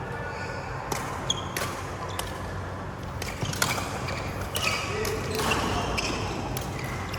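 Badminton rally: sharp racket strikes on the shuttlecock, irregularly about every half second to a second, with brief high sneaker squeaks on the court floor.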